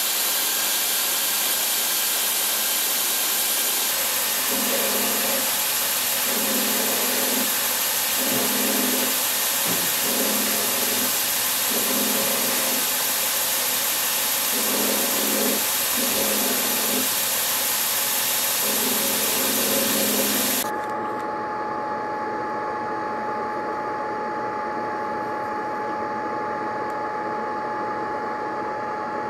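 Belt grinder running with a small metal knife-handle fitting held against the belt: a loud, steady grinding hiss, with a lower note that comes and goes about once a second as the piece is worked. About two-thirds through, the sound drops to a quieter steady machine hum with a high whine.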